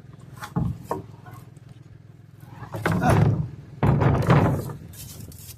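Wooden boards knocking and scraping together as scrap lumber is handled and sorted: two light knocks, then two longer, louder bouts of clatter and scraping near the middle.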